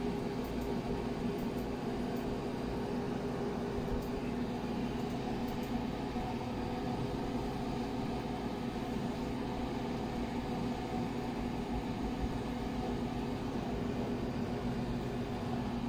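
Steady mechanical hum that does not change: a constant low drone with a few steady tones over a light even noise, like a running motor.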